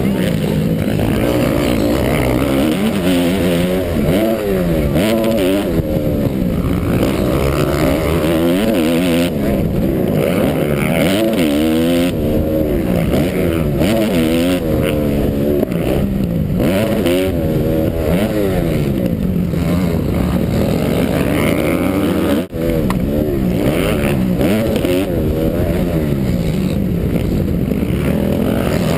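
Motocross bike engine heard from on board, revving hard and falling back over and over as the rider works the throttle and gears, with one brief cut in the sound about three-quarters of the way through.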